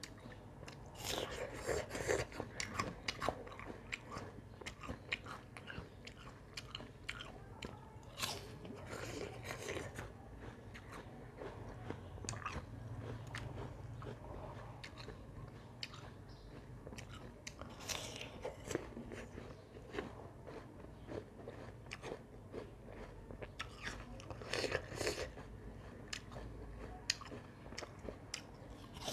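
Close-miked crisp raw apple being bitten and chewed: crunchy bites come in a few bursts, with quieter chewing between them.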